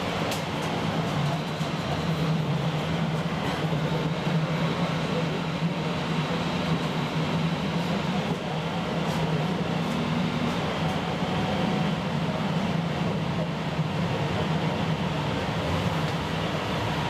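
Tram running along the track: a steady rumble with a low hum and a few faint clicks.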